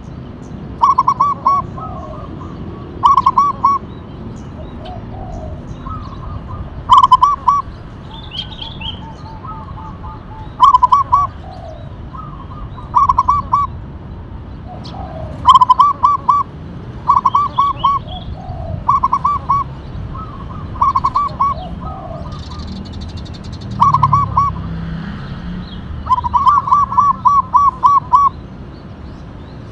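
Zebra dove (perkutut) cooing: short quick runs of soft staccato notes, repeated every two to three seconds, with fainter chirps of other birds in between.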